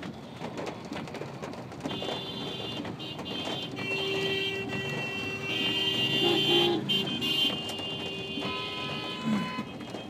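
Vehicle horns honking in traffic: long, overlapping high-pitched blasts from about two seconds in, with a lower horn joining near the end, over a steady hiss of rain and road noise.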